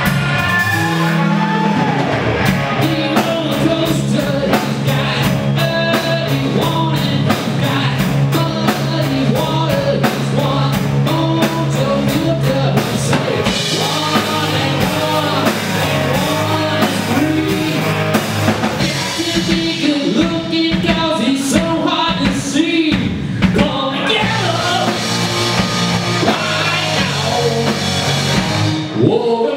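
Live rock band playing: distorted electric guitars, electric bass and a drum kit with busy cymbals, a man singing lead over them.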